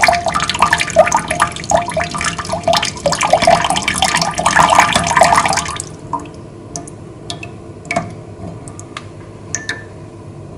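Loud running, splashing water for about the first six seconds, then it stops abruptly. After that, only scattered single drips are heard.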